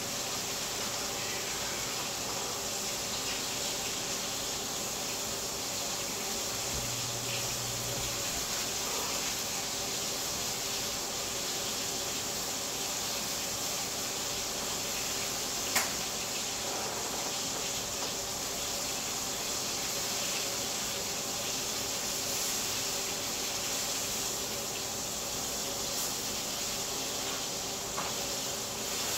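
Chicken breasts frying in oil in a skillet: a steady sizzle, with one sharp click partway through.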